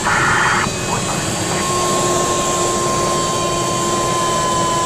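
Steady drone of a light aircraft's engine and airflow, heard inside the cockpit in cruise. A short burst of hiss comes at the very start, and a steady high tone comes in about one and a half seconds in.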